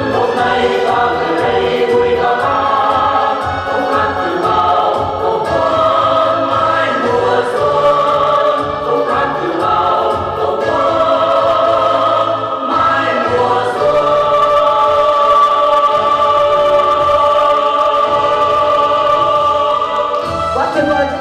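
Music with many voices singing together over a steady beat, playing for a stage dance.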